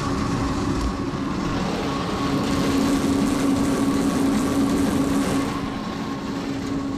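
Truck engine running with the truck-mounted sand spreader (sander) working, a steady mechanical hum over a rushing clatter that grows louder about two seconds in and eases off near the end as the sander runs out of sand.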